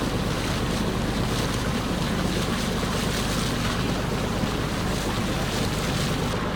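Boat engine running steadily, with water washing past and wind buffeting the microphone.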